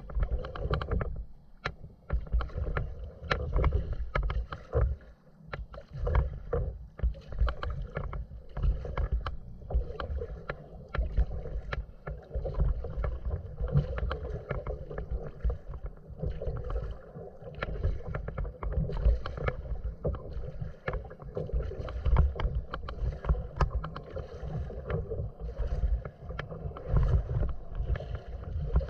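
Kayak being paddled across choppy open water: constant small splashes and drips from the paddle and wavelets lapping the hull, over a low, gusting rumble of wind on the microphone.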